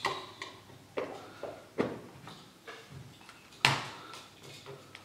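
Blue plastic lid being pressed and snapped shut on a plastic jug: a series of separate clicks and knocks, the loudest about three and a half seconds in.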